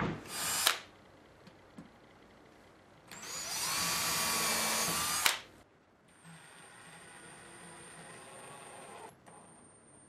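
Cordless drill driving wood screws into a redwood box: a short spin right at the start, then a longer run of about two seconds with the motor whine climbing and then holding, stopping abruptly.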